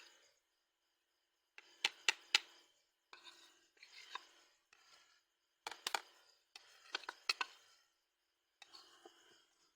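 Kitchen food-preparation sounds: short spells of rasping and scraping, with sharp knocks about two and six seconds in, and silent gaps between the spells.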